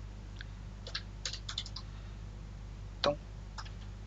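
Computer keyboard keystrokes: a few light taps, a quick run of them in the middle, then one louder click a little after three seconds in, over a faint steady hum.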